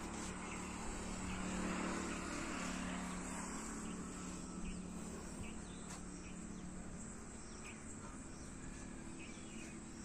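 Outdoor rural ambience: a distant engine hum that swells about two seconds in and then fades, over a steady high insect chirring and a few faint chirps.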